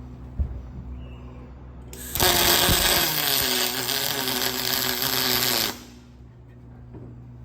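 Aluminium welding arc: one weld run of about three and a half seconds, a loud steady buzzing hiss that starts about two seconds in and cuts off sharply, over a low steady hum.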